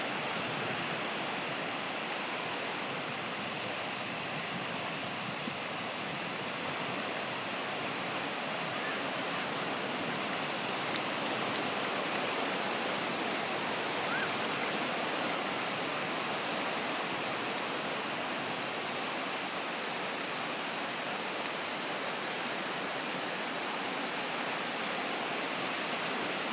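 Sea waves breaking on the shore, a steady rush of surf that hardly rises or falls.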